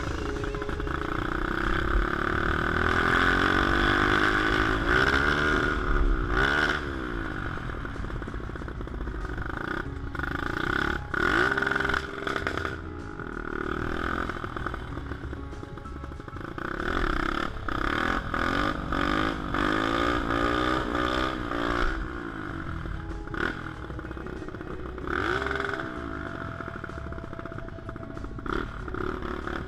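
Honda Monkey minibike's single-cylinder four-stroke engine running while riding. Its pitch rises and falls several times as it is revved and eased off.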